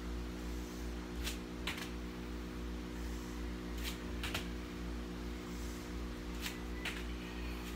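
Bare feet slapping on an exercise mat during jump squats: three jumps, each a quick pair of light slaps for takeoff and landing, about two and a half seconds apart. A steady low hum runs underneath.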